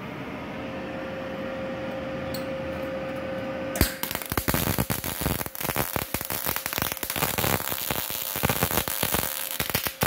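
A steady hum with one constant tone. About four seconds in, a MIG welding arc strikes and crackles continuously for about six seconds, then stops abruptly. This is 0.8 mm wire under CO2 shielding gas welding 1.5 mm steel sheet at low amperage, in the short-circuit transfer mode.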